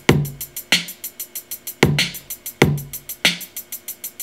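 Drum loop programmed on a Native Instruments Maschine step sequencer playing back: dirty-south style kick and snare pattern under a hi-hat on every step, a steady run of fast ticks.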